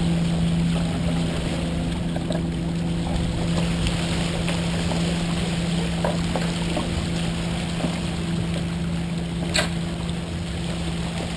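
Wind on the microphone and water rushing along the hull of a Columbia 30 sailboat under way, over a steady low hum. A single sharp click or knock comes near the end.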